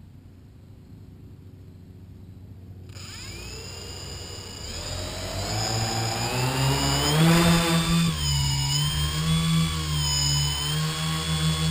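Tricopter's brushless electric motors and propellers spinning up about three seconds in: a whine that rises in pitch and loudness as the craft lifts off, then wavers up and down with the throttle in flight. Heard from a camera mounted on the frame.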